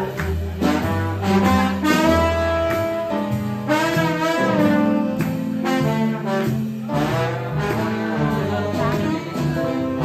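Swing jazz played live: a horn melody with vibrato over piano and a bass line that steps from note to note.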